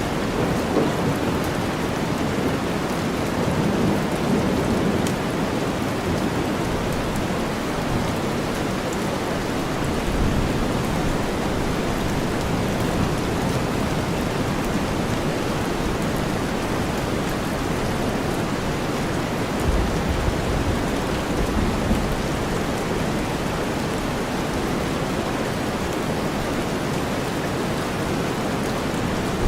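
Steady heavy rain blended with deep white noise, with low rumbles of thunder swelling about ten seconds in and again about twenty seconds in.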